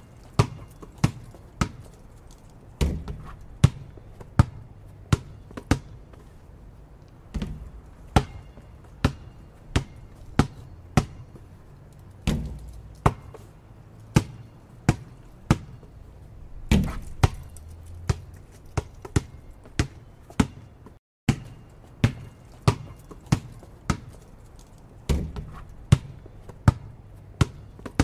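Basketball being bounced on a hard floor, a steady run of sharp bounces at roughly one to two per second, some landing as heavier low thuds. The bouncing breaks off for a moment about three-quarters of the way through, then carries on.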